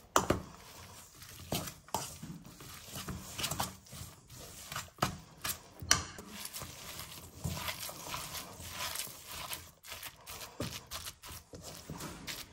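Fork stirring a grated potato, cheese and salami batter in a stainless steel bowl: irregular clicks and scrapes of the fork against the metal.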